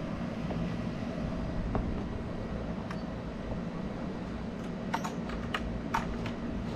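A steady low mechanical hum, with a quick run of light clicks and knocks over the last couple of seconds as a hand works the wooden lattice safety gate on the pool deck.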